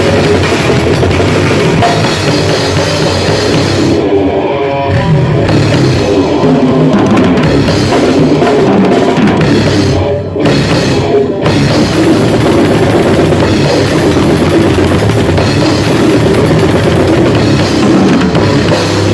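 Grindcore band playing loud and fast in rehearsal, the drum kit prominent, with short breaks in the playing about four seconds and ten seconds in.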